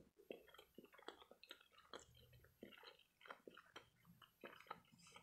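Faint, close chewing of a sauce-dipped imitation crab stick: soft wet mouth sounds with many irregular small clicks and smacks.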